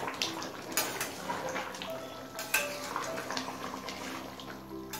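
Metal spatula stirring a thick, watery curry in a metal kadai, with wet sloshing and scraping and a few sharp knocks of the spatula against the pan.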